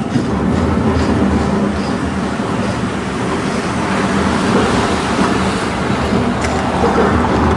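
Horse-drawn tram rolling along street rails, with the steady rumble and rattle of the car running on its wheels. The sound swells a little around the middle as a van passes.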